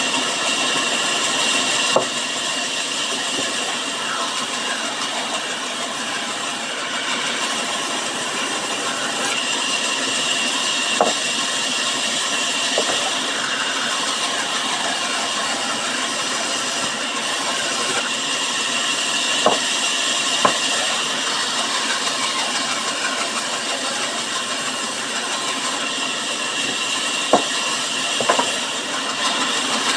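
Sawmill saw running steadily through timber, with a few short sharp knocks scattered through.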